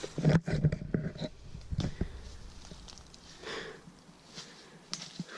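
Footsteps and knocks on the woodland floor, irregular and busiest in the first two seconds, then fainter.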